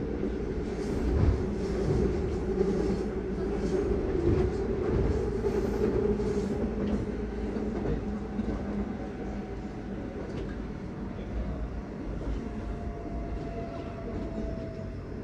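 Seoul Subway Line 2 train running, heard from inside the carriage: a steady rumble of wheels and running gear. In the second half a faint, slowly falling whine comes in and the rumble eases as the train slows.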